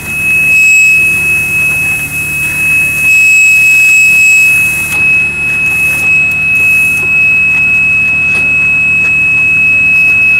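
Electronic buzzer sounding one continuous high-pitched tone without a break, over a low steady machine hum.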